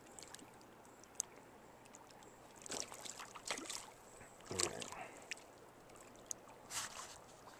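Hooked rainbow trout thrashing in shallow water, several short splashes over the faint steady flow of the stream.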